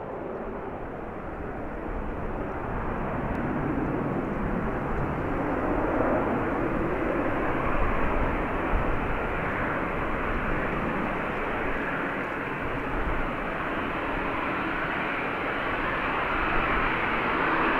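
Boeing 737-700 jet airliner's CFM56-7B turbofan engines running at taxi thrust as it taxis toward the listener: a steady jet engine noise that grows louder over the first few seconds and then holds.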